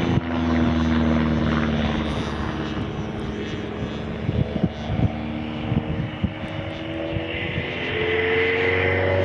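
Engine of a radio-controlled Seagull Super Stearman model biplane running in flight, its pitch sliding slowly down and then rising again near the end. A few short knocks come midway.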